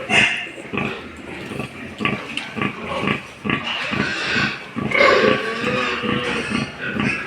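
Several pigs grunting in short, irregular calls, with a longer pitched squeal about five seconds in.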